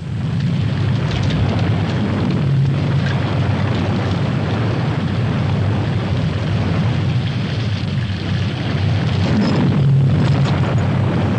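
A rainstorm with wind, a loud steady noise with a deep rumble underneath.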